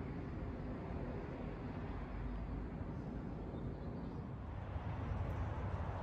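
Steady low outdoor background rumble, with no distinct events.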